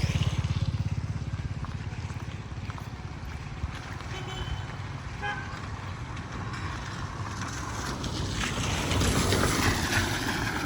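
Traffic on a rain-wet street: a vehicle engine's low pulsing is loud at the start and fades as it passes, over a steady hiss of rain and wet road. About eight seconds in, a second vehicle's tyre hiss swells and passes.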